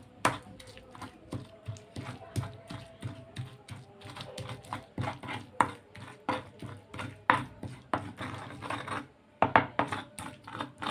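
Pestle (ulekan) grinding and pounding fried sambal ingredients in a cobek mortar: irregular knocks and scraping, roughly one or two a second.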